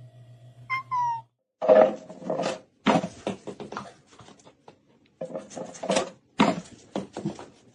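A pet animal making short, rough calls in irregular bursts, after a brief falling squeak about a second in.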